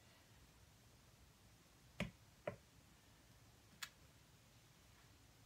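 Near silence broken by three short clicks, two close together about two seconds in and a fainter one near four seconds, as a plastic acrylic paint bottle and its cap are handled.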